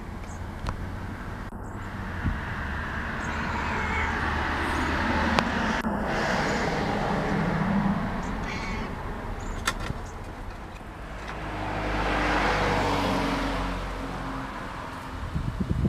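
Road traffic passing outdoors: a broad noise that swells and fades twice, over a steady low hum.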